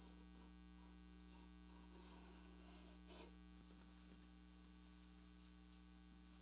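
Near silence: a steady low electrical hum, with one faint brief rustle about three seconds in.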